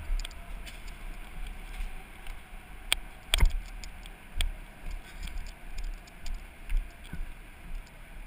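Low uneven rumble with a few sharp knocks and clatters, the loudest about three seconds in: handling and bumping noise on a helmet-mounted action camera as the driver climbs out of a stopped go-kart and walks off.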